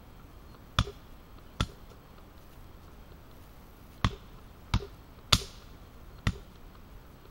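Hatchet chopping a branch held across a wooden chopping block: six sharp chops, two about a second in and four more between four and six seconds in. The fifth is the loudest, with a bright ring after it.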